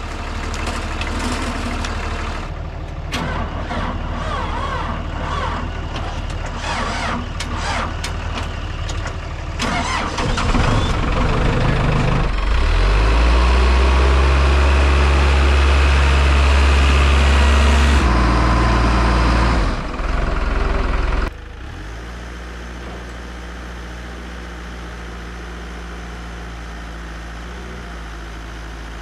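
Telehandler engine being started: clattering and knocks, then the engine catches about a third of the way in and runs loudly. It changes near the two-thirds mark and then runs quieter and steady.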